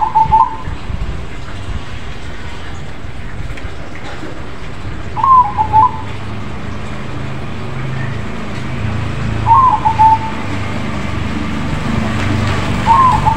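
A crossbred (krosing) zebra dove, or perkutut, singing its short stuttering coo phrase about every four seconds, four times in all, over a steady low background rumble.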